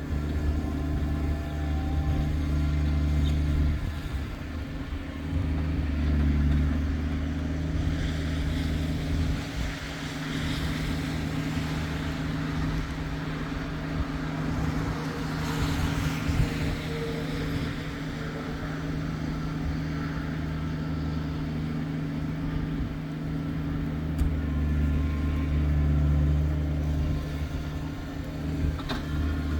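Kubota tractor's diesel engine running steadily under load, with a stretch of rushing noise in the middle.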